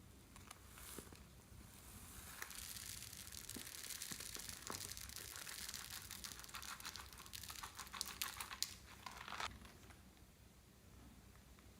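Floam slime with beads being squished and kneaded by hand, making a faint crunchy crackling that builds from about two seconds in and stops suddenly near the end.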